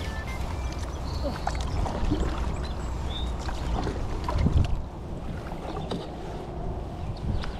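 Water lapping and splashing against a fishing kayak, with a few small splashes, the loudest about four and a half seconds in, over wind rumbling on the microphone.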